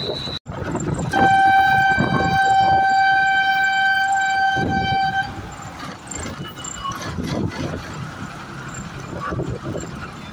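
A vehicle horn held on one steady note for about four seconds, starting about a second in, over the continuous noise of city traffic.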